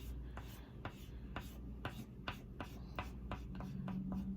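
Oil pastel stick rubbed back and forth across sketchbook paper, colouring in an area with regular scratchy strokes, about two to three a second.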